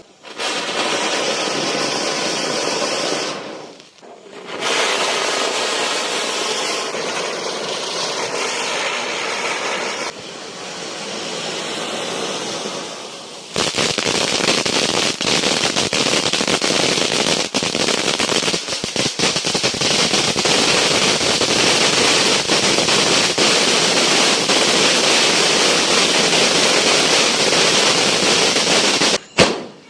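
Fireworks going off. For about the first half there are stretches of steady hissing, and from about halfway a long, loud run of rapid firecracker bangs continues until it stops abruptly near the end.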